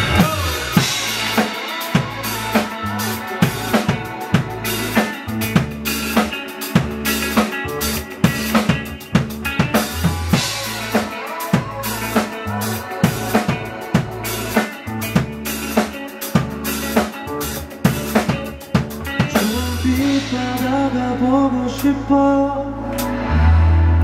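A live band playing an instrumental passage: a drum kit keeping a busy beat of snare, bass drum and cymbals over an electric bass guitar. About twenty seconds in the drumming thins out and the bass holds longer notes.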